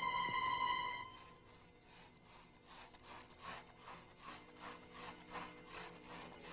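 A held musical tone ends about a second in. Then comes a rhythmic rasping, scraping sound, about three strokes a second, growing louder, like sawing or rubbing.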